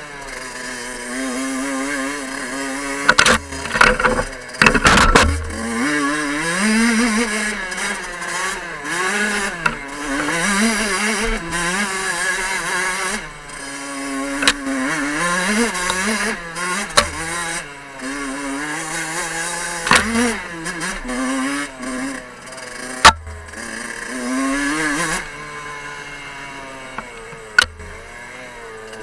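Fantic 50 Scuderia's small two-stroke engine revving up and down over and over as the dirt bike rides a rough forest trail, with several sharp knocks from the bike jolting over bumps.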